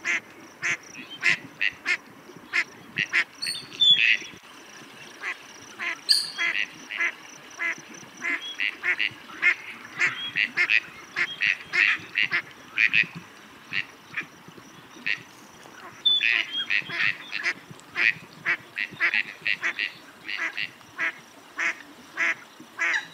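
Gadwall ducks calling: short quacks repeated in quick runs of several a second, with a brief lull a little past the middle.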